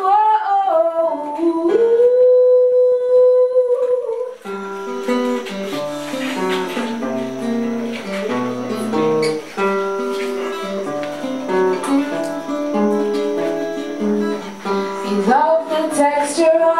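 A woman's voice ends a sung phrase on a long held note over acoustic guitar. Then the acoustic guitar plays an interlude of picked notes on its own, and the singing comes back in near the end.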